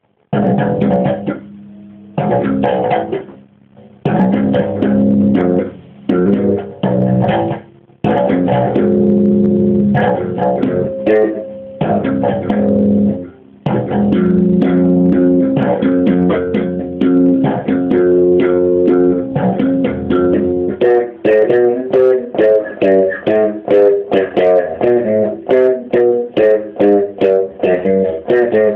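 Electric bass guitar played slap-style: phrases of sharp slapped and popped notes, broken by short pauses. In the last eight seconds or so it turns into an even run of quick repeated notes.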